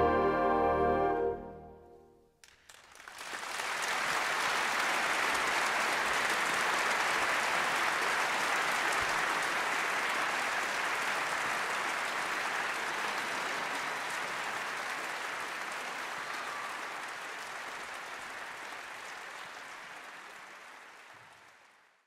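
A symphonic wind orchestra's final chord, cut off about a second in. After a brief pause, the audience breaks into applause, which slowly fades away toward the end.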